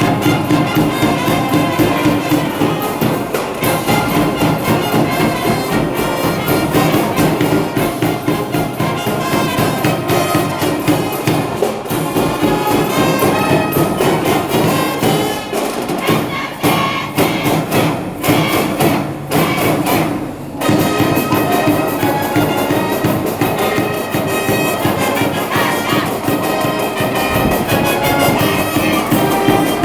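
High school brass band playing a baseball cheering tune: brass over a steady drum beat, with a few short stops in the middle.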